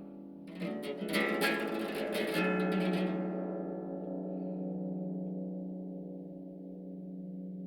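Harp: a quick flurry of plucked notes, then a long low ringing tone whose brighter overtones die away.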